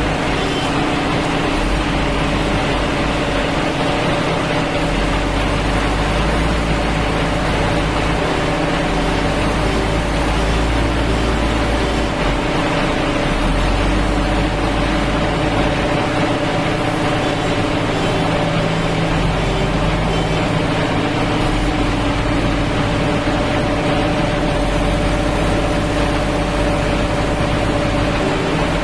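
Heavy diesel engine running at a steady speed, with a deep low rumble that swells and fades every few seconds.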